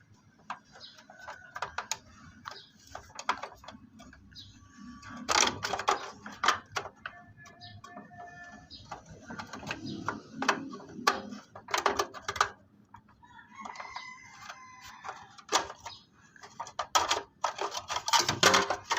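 Desktop computer case parts clicking and knocking as a plastic cover is pushed into place, in irregular handling sounds with louder knocks now and then. Two drawn-out pitched calls sound in the background near the middle.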